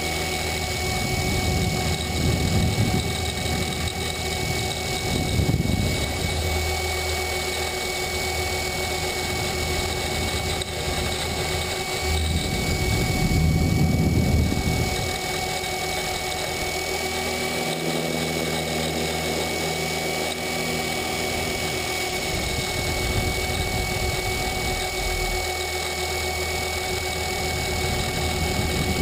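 Align T-Rex 500 RC helicopter in flight, heard from a camera on its frame: the electric motor and drive gears whine steadily under the rotor noise. The rushing noise swells a few times, most of all in the middle, as the helicopter manoeuvres.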